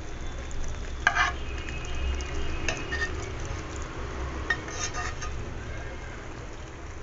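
A spoon scraping and clinking against a steel pot as vegetable curry is spooned over a layer of cooked rice, with sharp clinks about a second in, near three seconds, and a few more around four and a half to five seconds.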